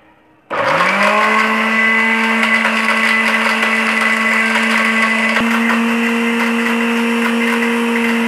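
Countertop blender switched on with its dial. The motor spins up within a fraction of a second, then runs steadily as it grinds dried pomegranate seeds, green chillies and ginger with a little water into chutney. Its pitch steps up slightly about five seconds in.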